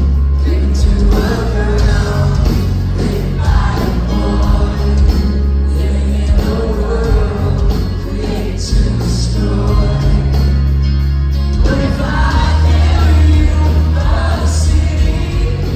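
Live piano-led rock band playing amplified through a venue PA, with a lead vocal over electric guitar, bass, drums and keys, the bass heavy.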